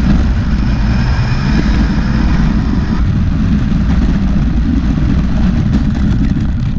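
RC monster truck driving over concrete, heard from a camera mounted on the truck: a loud, steady low rumble of tyres and body vibration, with a faint high motor whine in the first few seconds.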